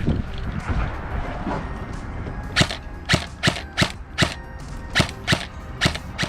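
Airsoft gun firing single shots, about nine sharp snaps at an uneven pace of two or three a second, starting about two and a half seconds in. Before that, wind buffets the microphone over footsteps and gear rustle.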